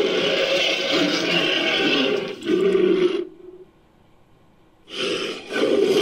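Made-up dinosaur roar sound effect, mixed from Allosaurus and Spinosaurus roar recordings and stock monster sounds. A long roar breaks off about three seconds in, a brief pause follows, and another roar starts about five seconds in.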